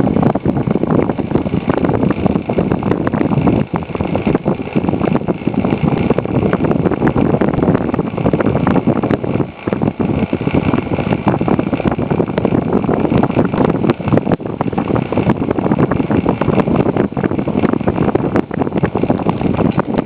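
Westinghouse Style 1229244 table fan with a three-wing 8-inch blade running at its single speed. Its airflow buffets the microphone in a steady, rough rushing noise.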